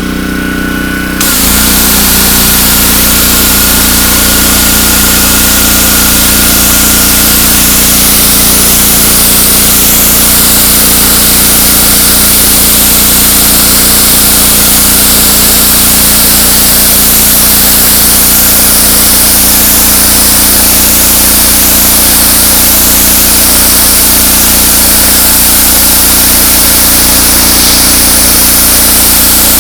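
Engine-driven pressure washer running steadily. The hiss of the high-pressure water spray starts about a second in and carries on.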